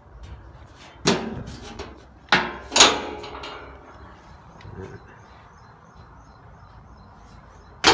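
Four sharp knocks with a short ringing after each, on the metal of an old bandsaw's housing and wheel guards: one about a second in, two close together at around two and a half seconds, and one near the end.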